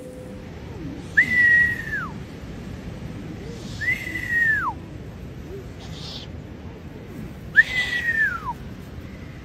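Three long whistles, each holding a high note and then sliding steeply down, with a short hiss between the second and third.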